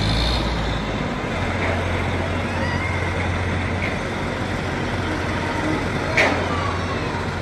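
Diesel engine of heavy construction machinery running steadily with a low hum, and a single sharp knock about six seconds in.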